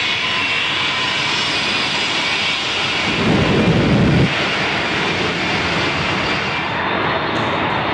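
Shockwave jet truck's three jet engines running at high power with afterburner flames: a loud, steady jet rush. About three seconds in a deeper, louder blast swells up, then cuts off suddenly a little after four seconds.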